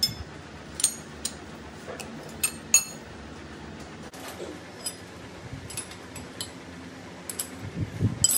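Metal tools and parts clinking against each other at a lathe: about a dozen sharp clinks at irregular intervals, some with a short ring, over a steady low hum.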